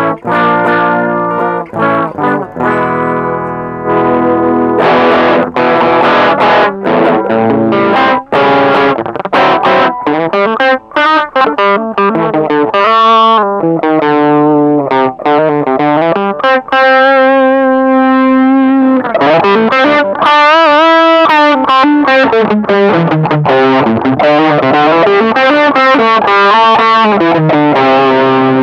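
Electric guitar played through a Caline High Peak distortion pedal, demonstrating its drive. Distorted chords and riffs give way around the middle to held single notes that waver in pitch with bends and vibrato.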